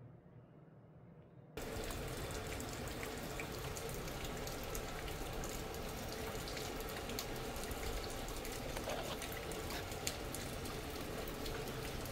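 Steady rain falling on a wet concrete yard and garden leaves: an even hiss with scattered drop ticks. It cuts in suddenly about a second and a half in, after faint room tone.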